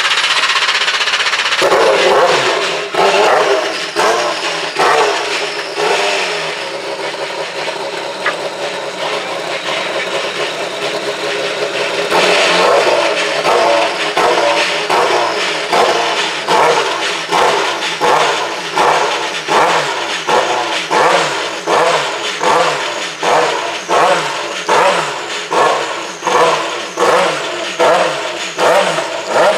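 DeltaWing prototype race car's engine running just after start-up, revving. From about twelve seconds in, its note surges and dips in an even rhythm, roughly three surges every two seconds.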